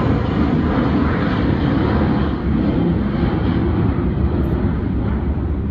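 Narrow-body jet airliner climbing out after takeoff, its engines a loud, steady rumbling roar. The higher part of the roar thins a little toward the end as the jet draws away.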